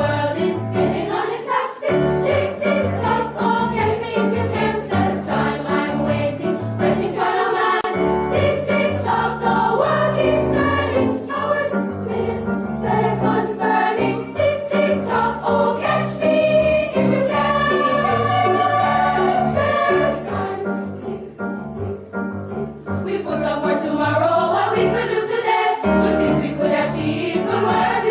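A school choir singing with instrumental accompaniment, growing softer for a few seconds about two-thirds of the way through.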